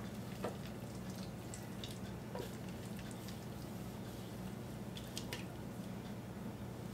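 Faint wet squishes and light clicks of a spoon scraping a creamy chicken and noodle mixture out of a bowl into a casserole dish, over a steady low hum.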